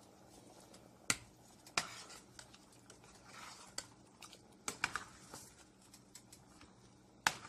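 A metal spoon stirring a wet rice and sausage mixture in a stainless steel pot, clicking sharply against the pot's side at irregular moments, with a faint soft swishing in between; the loudest clink comes near the end.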